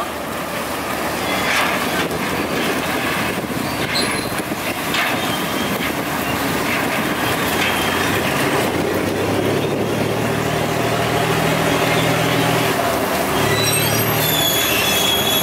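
Ferry engine running steadily as the boat comes alongside a floating pontoon, with a steady hum joining from about halfway. A high squeal comes near the end as the boat meets the pontoon.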